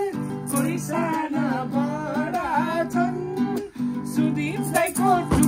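A Nepali dohori folk song: acoustic guitar strummed under a wavering sung melody, with steady held low notes throughout.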